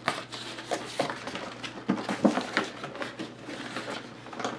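Cardboard box packaging being handled and slid open: irregular light knocks, taps and scraping of cardboard.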